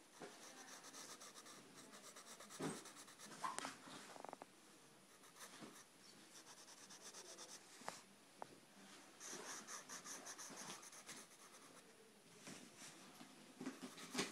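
Pencil scratching on paper in faint runs of quick drawing strokes, with a few soft knocks in between.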